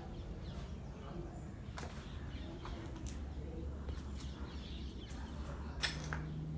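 Quiet outdoor ambience among trees: birds calling faintly over a low steady hum, with scattered light clicks and a sharper click near the end.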